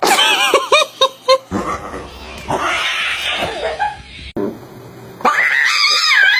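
A cat's short high calls and yowls, mixed with laughter. A quick run of rising-and-falling calls comes first, then, after a sudden break, longer wavering cries.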